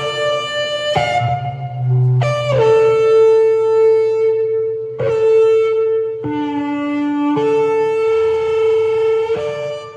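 Shofar blown in a run of long held blasts, sounded as an alarm. The pitch breaks between a few notes, with one lower blast a little past the middle.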